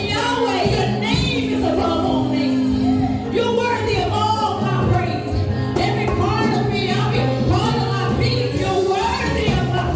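Live church worship music: singing over a band, with held bass notes and a steady drum beat.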